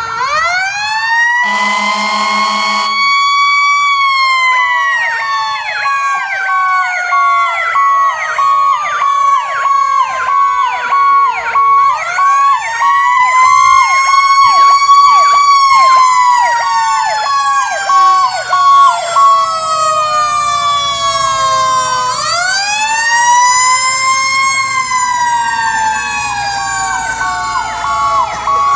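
Fire apparatus sirens: a mechanical Federal Q siren winds up to its peak and slowly coasts down, three times, over electronic sirens yelping and a pulsing steady tone. A blast of heavy air horns sounds about two seconds in and lasts a second and a half.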